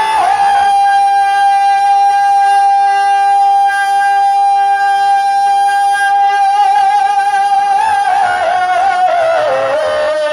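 A male naat reciter sings, holding one long steady note for about seven seconds, then his voice wavers through ornamented turns up and down in pitch.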